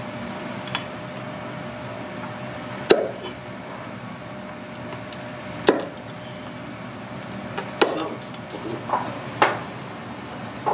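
Kitchen knife cutting through snow crab leg shell and striking a wooden cutting board: half a dozen sharp knocks about two seconds apart, over a steady background hum.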